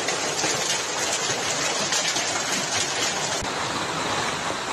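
Hailstorm: hail and heavy rain pelting the ground in strong wind, a dense, steady rushing noise.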